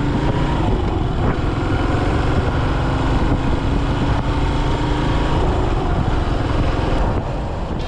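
Yamaha SR400's air-cooled single-cylinder four-stroke engine running steadily under way as the motorcycle rides up an expressway on-ramp.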